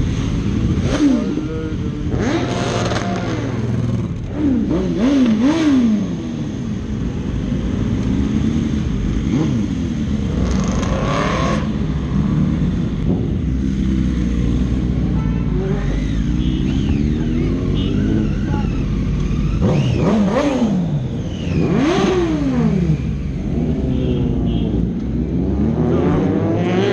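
Sport motorcycles accelerating hard, their engines revving up and dropping back again and again as they shift through the gears, sometimes two bikes at once, over a steady low rumble.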